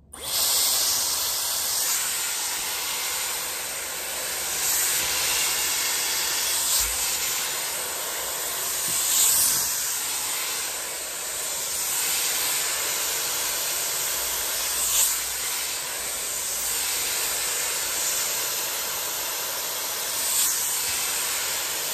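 Dyson Airwrap with the firm smoothing brush attachment blowing air through hair: a steady, airy hiss that swells briefly now and then as the brush moves.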